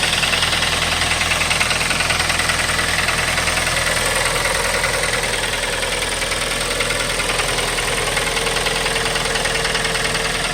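2012 Kia Forte's four-cylinder engine running steadily, with a fast, even ticking from the engine. The cause of the tick is unknown to the owner.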